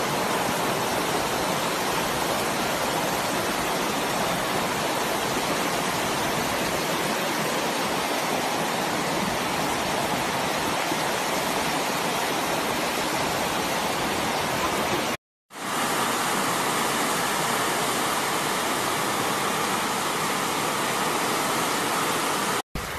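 Muddy floodwater rushing down a street in a heavy rainstorm: a steady, even rush of water noise. It cuts out for a moment about fifteen seconds in and again near the end.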